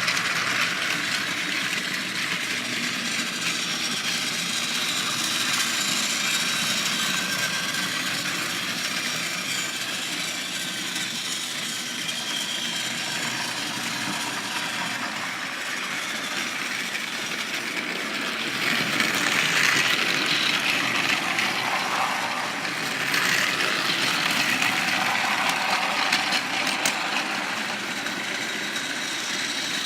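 Battery-powered Trackmaster toy train running on plastic track, its small motor and gears whirring steadily as it pulls coaches. It grows louder about two-thirds of the way through, as if passing close.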